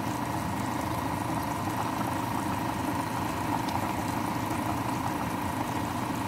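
Pot of kimchi jjigae simmering on the stove: a steady bubbling hiss, with a thin steady hum running under it.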